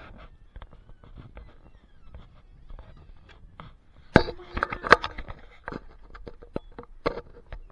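Handling noise from an action camera being carried while walking: scattered knocks, clicks and footsteps, with a cluster of louder knocks about four to five seconds in.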